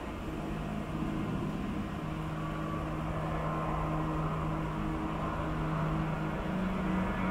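Airbus A320's twin CFM56 jet engines at takeoff thrust during the takeoff roll: a steady rumble with a low hum that grows gradually louder.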